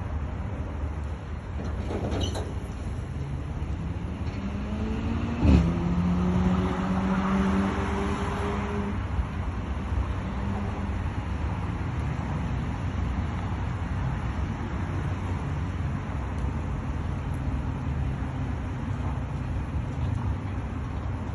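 Steady low rumble of a vehicle on the road, with a sharp knock about five seconds in and a pitched drone that rises briefly, holds for a few seconds and fades.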